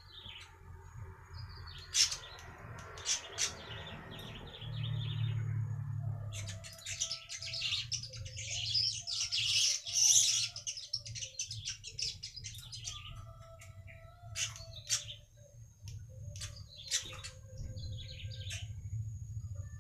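Weaver bird (manyar) chirping and singing, with short repeated chirps and a dense, buzzy chattering song in the middle. A low steady hum runs underneath.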